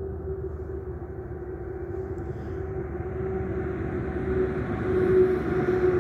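A steady, engine-like drone over a low rumble, growing louder toward the end.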